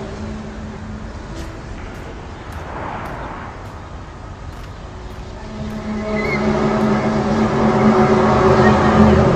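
Low, horn-like drone made of several steady tones together, the kind of recording passed around as a "strange trumpet sound in the sky". It fades away after the first second and swells back up from about halfway through.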